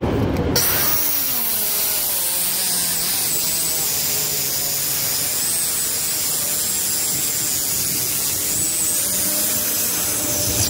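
Circular saw with a DeWalt diamond blade cutting through asphalt: a loud, steady high whine over grinding, running without a break.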